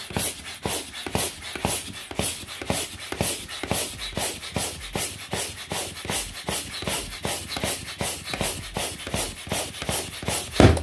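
Air pump forcing air through a hose into a clear plastic bubble balloon in rhythmic puffs, about four or five a second. Near the end the overstretched balloon bursts with a loud bang.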